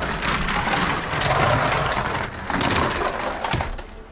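Brick-built toy race cars clattering as they run down a toy race track: a dense rattle of small plastic clicks that eases briefly about two and a half seconds in, then stops shortly before four seconds.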